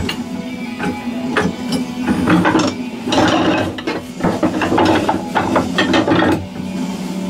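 A wood lathe runs with a steady hum while a hand-held turning tool cuts the spinning wood in several bursts of scraping, from about two seconds in until shortly before the end.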